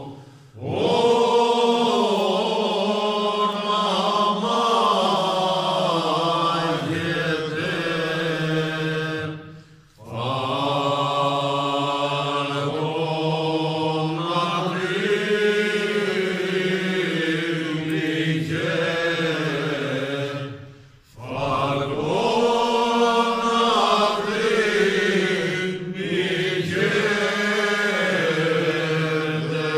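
Men's voices singing an unaccompanied Cretan rizitiko song in long, slow, drawn-out phrases, breaking off briefly for breath about a third and two-thirds of the way in. It is an amateur recording made on a mobile phone.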